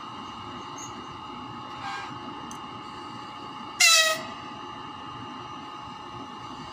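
EP20 electric locomotive sounding its horn: a faint short toot about two seconds in, then a loud short blast about four seconds in whose pitch sags as it ends, over the locomotive's steady electrical whine.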